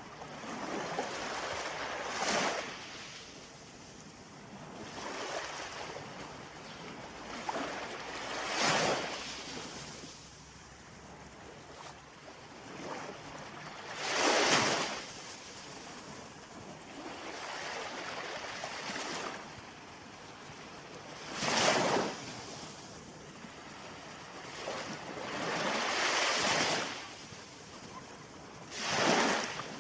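Ocean surf: waves surging and breaking about six times, a few seconds apart, over a steady wash of water.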